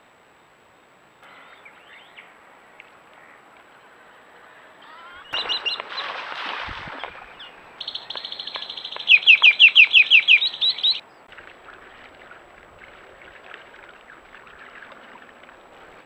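A bird singing: a fast run of short, repeated high chirps, loudest a little past halfway, after a brief rustling burst with a low thump.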